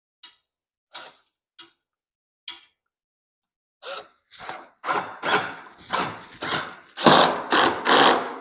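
A hand tool working wood: a few short isolated scrapes, then a run of rasping back-and-forth strokes, about two a second, getting louder toward the end.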